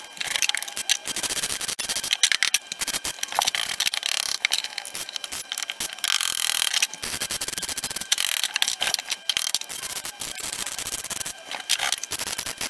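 MIG welder crackling as it welds a steel patch panel into a car's rear floor pan, in short welds with brief pauses between them.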